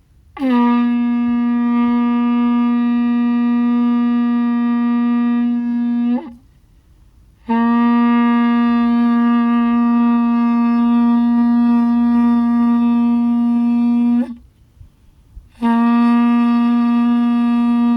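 Shofar blown in three long, steady blasts on a single note, each lasting about six to seven seconds, with a short pause for breath between them.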